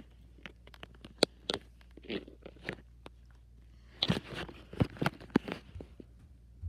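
Handling noise from a phone moved against fabric: irregular soft clicks, scrapes and rustles, sparse at first and busier about four seconds in.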